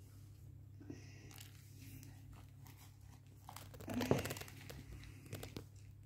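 Dry seed mix rustling and clicking in a clear plastic bowl, a short burst about four seconds in as a hand reaches into it, with a few faint ticks after.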